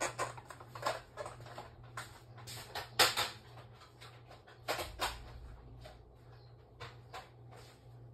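Scattered clicks and knocks of objects being handled, the loudest about three seconds in, over a steady low hum.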